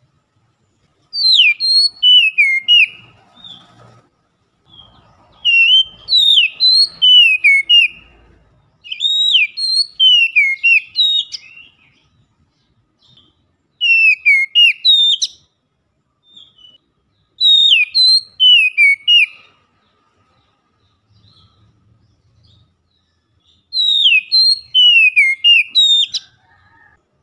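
Oriental magpie-robin (kacer) singing loudly in repeated phrases of clear whistled notes that sweep down and up. About six phrases of two to three seconds each, separated by short pauses.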